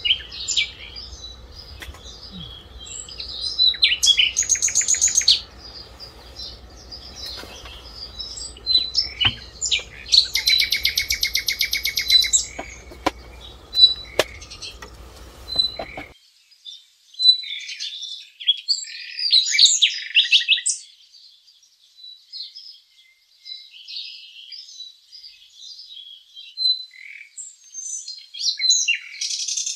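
Small birds chirping and calling, with two louder, fast trills lasting a second or two each, about four and ten seconds in. A low background rumble cuts off suddenly about halfway through.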